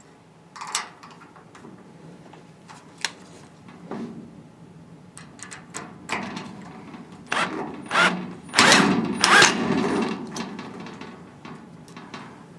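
Power screwdriver driving self-tapping screws into a sheet-metal cabinet, making a thread as they go. Irregular clicks and knocks of the bit and the metal parts come first. About two-thirds of the way in there is a louder stretch of about a second and a half.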